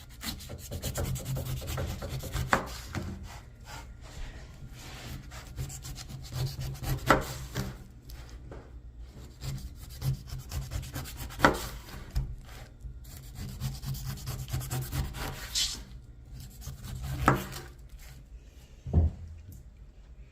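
Rough rubbing and scraping as a pink pineapple is handled, with several sharp knocks spread through.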